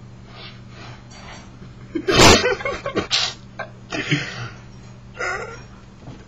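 Sudden loud vocal outburst close to the webcam microphone about two seconds in, followed by several shorter bursts of breath and voice, over a steady low hum.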